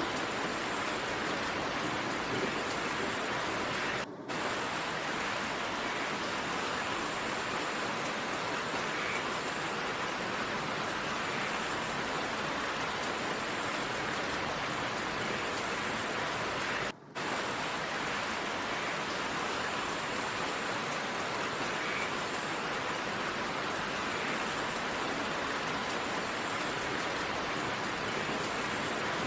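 Steady downpour of rain, an even hiss that cuts out for a moment twice, about four seconds in and again about seventeen seconds in.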